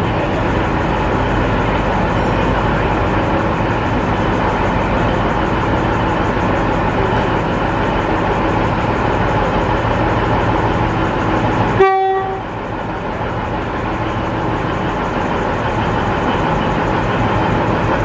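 XPT diesel power car running steadily while stationary, with one short horn toot about twelve seconds in.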